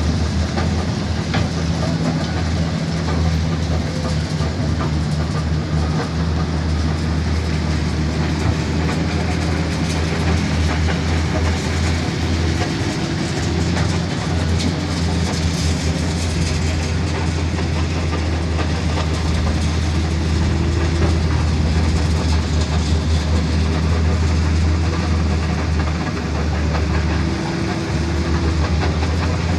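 Heavy dump truck's diesel engine running steadily with a deep, continuous hum.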